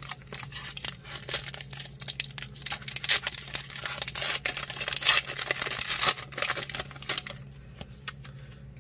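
Plastic wrapper of a baseball card pack being torn open and crinkled by hand: a dense run of crackling that dies down near the end.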